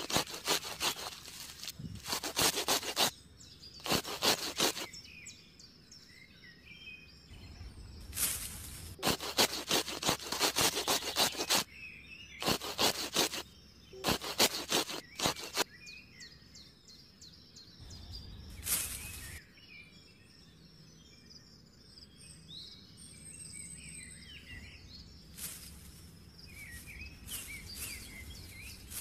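Small scissors snipping through the base of dense green seedlings in quick bursts of crisp cuts, with short pauses between the bursts. Birds chirp faintly in the background.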